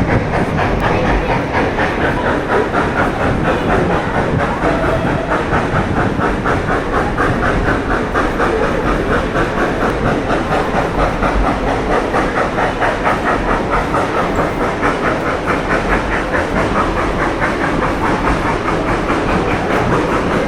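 Train running steadily, heard from aboard: a continuous rushing hiss with a fast, even rhythmic beat of a few pulses a second.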